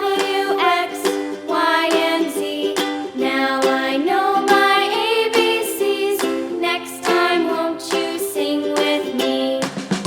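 Background music: a bright, plucked ukulele-style tune with a steady beat and a sung or hummed melody line. Near the end the backing changes and a low bass comes in.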